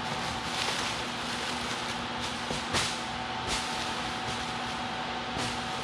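Plastic wrapping rustling and crinkling in short bursts as wrapped exhaust parts are handled and pulled out of a cardboard box, with one sharper crackle a little before the middle. A steady hum sits underneath.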